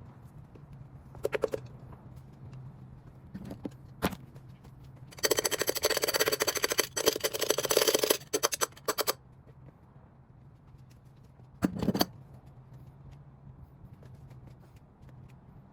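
Hand tools working on the Ford 302 Windsor engine block during teardown: a rapid run of clicks for about four seconds in the middle, with a few single knocks before and after.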